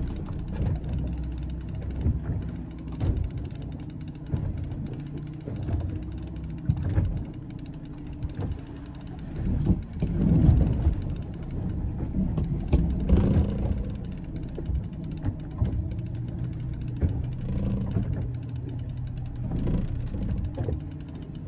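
Boat's outboard engine running, its pitch shifting now and then, with wind and water noise.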